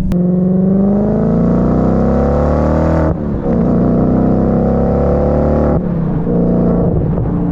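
Audi S4's 4.2-litre V8 accelerating through a MagnaFlow exhaust with the mufflers deleted, in the tune's normal mode with no burbles or pops. The pitch rises, breaks and drops about three seconds in, climbs again, then eases to a lower, steadier note a little before six seconds.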